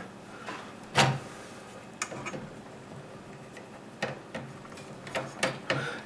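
Hand screwdriver turning a power-supply mounting screw into a metal computer case: a few small, irregular clicks and ticks, the sharpest about a second in.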